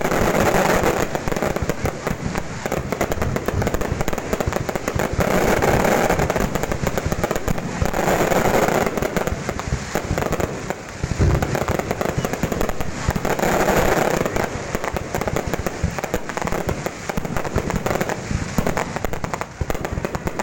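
Fireworks going off without a break: dense, rapid crackling and popping, with louder swells every few seconds.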